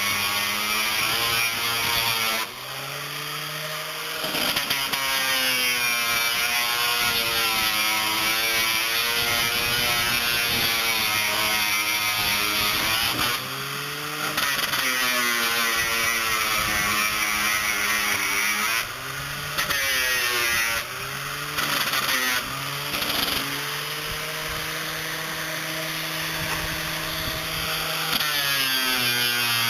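A 7-inch electric circular saw running and cutting plywood boat stringers. Its motor whine drops in pitch each time the blade loads into the cut and rises again as it frees, several times over, with a long loaded stretch near the end.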